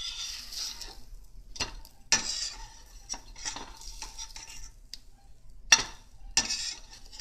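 Slotted metal spatula scraping and clinking against a metal frying pan as a pancake is slid around and turned over in oil, with the oil sizzling. Several sharp clinks of spatula on pan stand out, the loudest a little after the middle.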